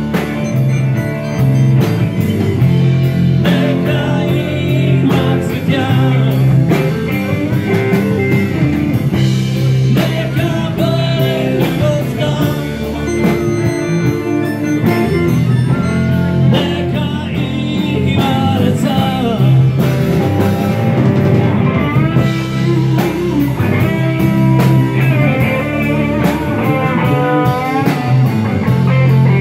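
Loud rock music with singing and guitar over a bass line and drum beat.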